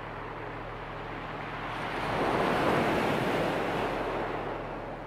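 Sea waves washing on the shore: a steady wash of surf, with one wave swelling loud about two seconds in and easing off near the end.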